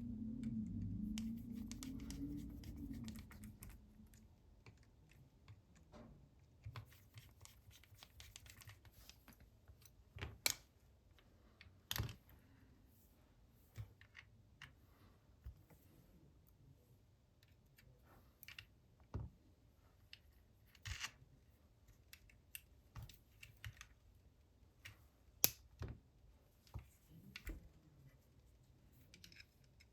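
Small screwdriver and metal parts clicking, tapping and scraping against a Canon F1 camera body as its top cover is screwed back on. The sharp clicks come irregularly, several seconds apart, with faint scratching between them.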